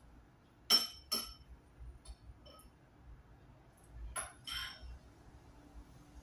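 Metal cutlery clinking against a ceramic bowl while eating: two sharp clinks about a second in, a couple of fainter taps, then two more clinks about four seconds in.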